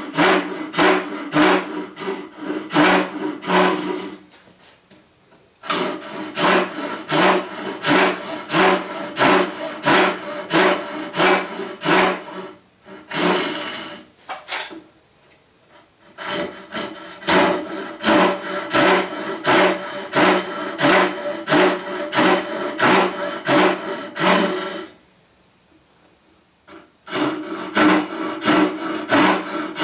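Hishiki Japanese rip saw cutting dovetail pins in a wooden board: steady back-and-forth rasping strokes at about two a second. The sawing stops briefly about four seconds in, twice around the middle, and again near the end, as the saw moves between cuts.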